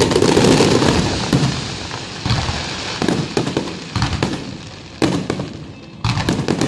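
Fireworks exploding: a dense barrage of bangs and crackling at first, then thinning to separate booms a second or so apart.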